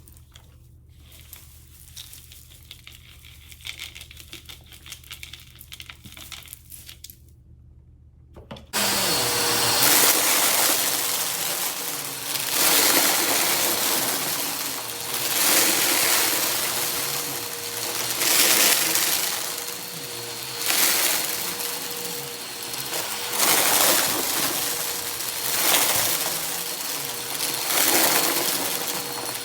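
Upright vacuum cleaner switched on about nine seconds in, running with a steady motor whine and swelling in regular strokes about every two and a half seconds as it is pushed back and forth, crunching up confetti with its dust bin overfilled. Before it starts there are only faint scattered crackles over a low hum.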